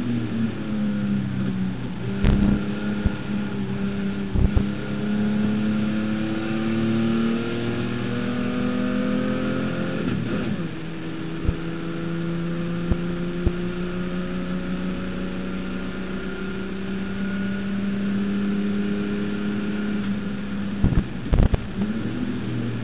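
Holden HQ race car's straight-six engine heard from on board under hard acceleration, its pitch climbing slowly and steadily. About ten seconds in the note breaks off briefly, then runs on steady and high; a few short thumps sound now and then.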